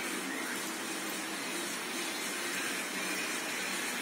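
Electric blender running steadily, grinding corn kernels into a paste.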